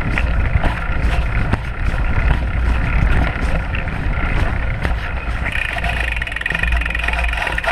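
Fat-tyre mountain bike riding a dirt trail, heard from a handlebar-mounted camera: wind rumble on the microphone and tyre and frame noise, with sharp clicks and rattles from bumps. A steady higher hum joins about five and a half seconds in.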